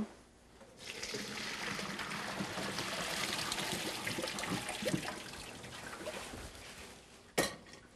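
Hot water and boiled vegetables poured from a stainless steel pot into a perforated metal colander: a steady splashing rush that starts about a second in and slowly tapers off. A short sharp knock near the end.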